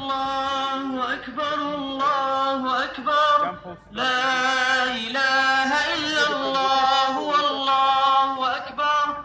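Male chanting in long, steady held notes with short gliding turns between phrases, breaking off briefly about four seconds in.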